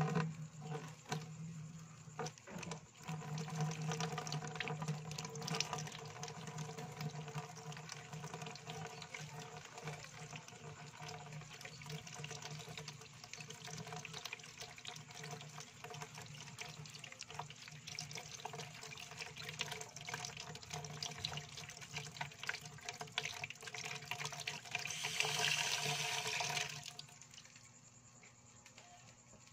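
Tap water running into a basin of water, splashing as tomatoes are rubbed and rinsed under the stream. The flow gets louder for a moment, then stops a couple of seconds before the end.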